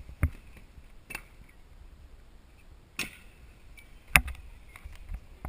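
Freestyle stunt scooter deck and wheels clacking against the skatepark ground, a handful of sharp knocks a second or so apart, with quiet between them.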